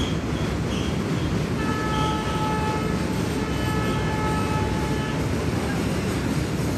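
Freight train of tank wagons rolling past with a steady, heavy rumble from wheels on rails. About a second and a half in, a train horn sounds twice: a shorter blast, then a longer one.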